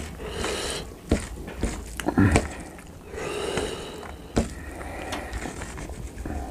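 Close-up eating sounds: wet chewing with sharp mouth clicks and smacks, and fingers squishing rice into curry gravy.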